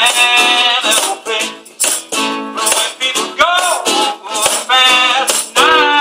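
Live acoustic music: a man singing, accompanied by a strummed steel-string acoustic guitar and a plucked upright double bass, with the strums falling in a steady rhythm.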